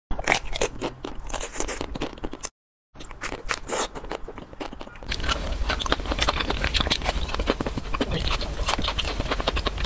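Eating sounds: crisp crunching bites and chewing of chocolate-coated ice cream bars, with a short break about two and a half seconds in. The crunching grows denser and louder over the second half.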